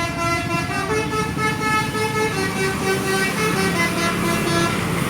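Bus telolet horn playing a short tune: several horn notes sounding together and stepping up and down in pitch, over a steady engine rumble. The tune stops near the end.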